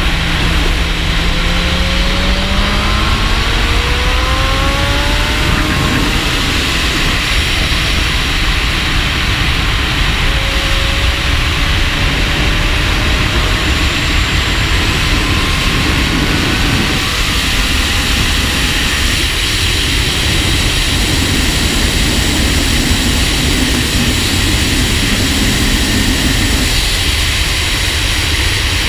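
Wind rushing over a shoulder-mounted action camera on a 2017 Honda Fireblade SP at track speed. Under it, the bike's inline-four engine rises in pitch several times in the first few seconds as it pulls through the gears, then climbs slowly again later.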